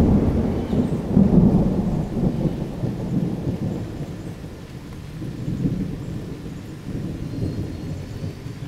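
Thunder rumbling, deep and loudest in the first second and a half, then dying away, with a weaker second roll about halfway through.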